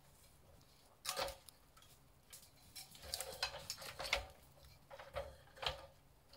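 Irregular light knocks and clattering from objects being handled. The loudest is about a second in, with a busier run of clicks a couple of seconds later.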